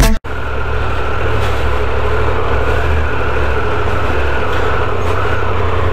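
Intro music cuts off abruptly, then a motorcycle engine runs steadily at low speed under the rider, a constant low rumble with a layer of noise over it.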